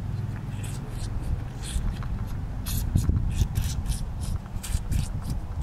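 Moose calf sucking and slurping on a milk bottle's nipple, a run of short wet sucks about two or three a second. A low steady hum runs underneath.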